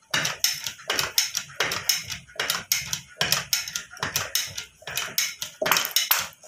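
Hand lever of a Groz VGP-06 bucket grease pump worked in quick strokes, giving a rapid metallic clacking about three times a second. The pump is being primed, with its air-release valve open to bleed air from the hose.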